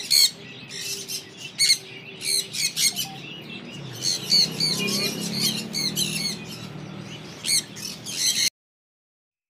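Swainson's (rainbow) lorikeets screeching: a rapid run of short, shrill calls that stops abruptly about a second before the end.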